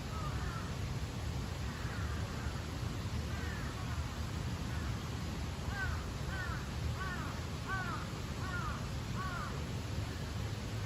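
A crow cawing, a few scattered caws and then a run of about six in quick succession in the second half, over a steady low rumble.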